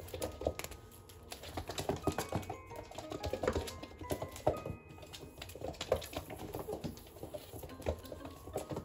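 Rapid, irregular light taps and clicks of a kitten's paws and claws scrabbling on a laminate wood floor as it pounces at a feather wand toy, mixed with the toy slapping the boards.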